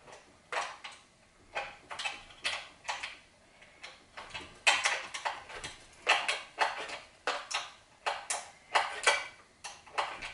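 Bolts being fastened on the belt cover of a variable clutch kit on a Predator 212cc engine, by hand. The sound is a string of short, irregular clicks and clatters, about one or two a second.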